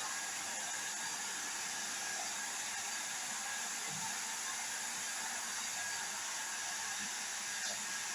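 Hair dryer running steadily: an even hiss of blown air with a faint steady whine in it.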